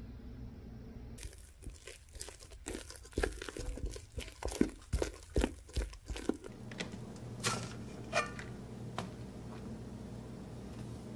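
Thick cake batter being stirred in a metal mixing bowl: a run of irregular clicks and knocks of the utensil against the bowl for about five seconds. After that, a low steady hum with a few soft taps.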